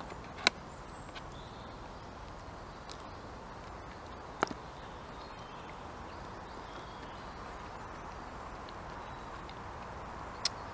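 A tactical spork clicking against a ration-pack food pouch while eating stew: three short sharp clicks, about half a second in, about four seconds in and near the end, over a steady faint outdoor hiss.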